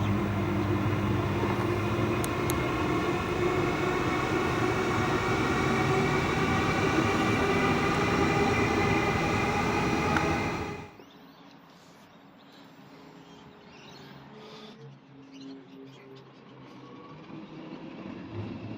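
Queensland Rail SMU electric multiple-unit train running by, its electric motors whining in a stack of tones that rise slowly in pitch over the wheel and rail noise. About eleven seconds in the sound cuts off abruptly, leaving only a faint, quiet background.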